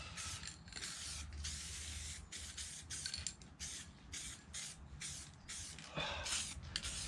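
Aerosol spray can of silver base-coat paint hissing in short bursts, roughly two a second, as a thin dusting coat is put on.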